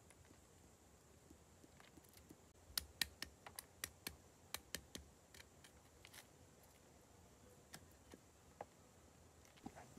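Short wooden stick knocking roasted cashew nuts against a stone to crack the shells: a quick, uneven run of about a dozen sharp cracks and taps in the middle, then a few scattered clicks as shell pieces are picked apart.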